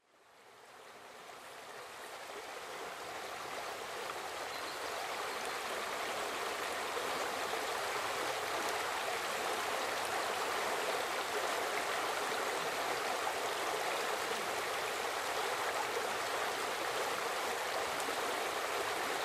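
Stream water flowing steadily, fading in over the first few seconds.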